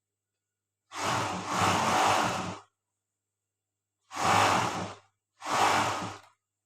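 Overlock sewing machine running in three short bursts, the first about a second in and the other two close together near the end, each a steady motor hum under a dense stitching buzz that stops abruptly.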